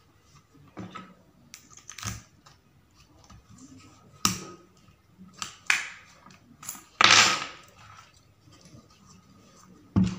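Scattered clicks and knocks of a motorcycle ignition key lock's metal and plastic parts being handled and pressed together during reassembly, with a louder scraping sound of about a second roughly two-thirds through.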